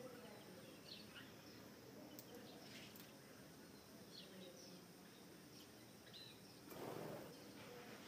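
Faint ambience with scattered short, high chirps from small birds, and a brief rush of noise near the end.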